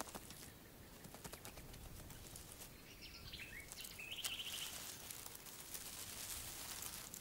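Faint outdoor ambience with a steady hiss. About three seconds in, a bird gives a short wavering call that ends in a quick trill.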